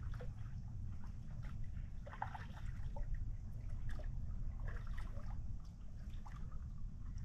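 Lake water making small splashes and trickles, with the dip and drip of a paddle, over a steady low rumble.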